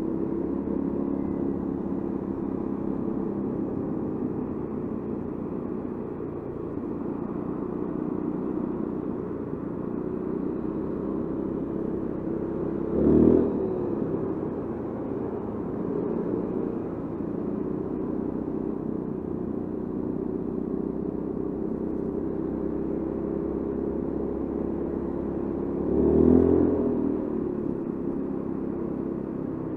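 Honda Forza 350 scooter's single-cylinder engine running steadily while riding through city traffic, with two brief louder swells about 13 and 26 seconds in.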